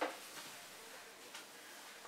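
Faint handling and rubbing of a microfiber cloth wiping a small projector mirror, with a brief soft knock-like sound at the start.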